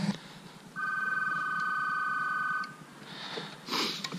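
A steady electronic tone, two pitches sounding together, held for about two seconds and then stopping. A short burst of noise follows near the end.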